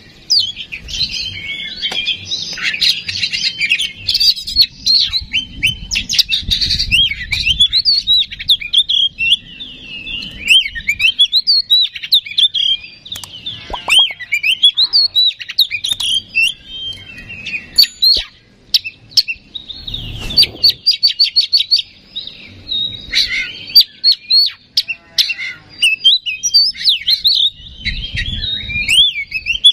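Oriental magpie-robin singing a loud, fast, varied song of rising and falling whistles and chattering notes, almost without a break, pausing only briefly a couple of times.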